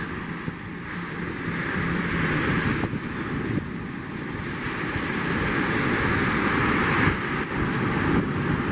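Surf breaking and wind buffeting the microphone, with the faint steady drone of a launch boat's outboard motor running out through the waves.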